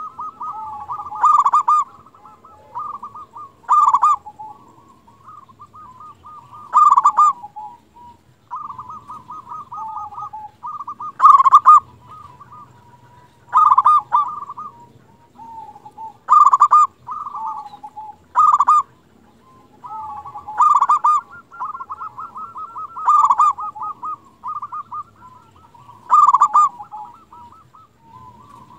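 Zebra dove (perkutut) cooing over and over: a loud, clipped coo phrase every two to three seconds, with softer, rapid trilled cooing in between.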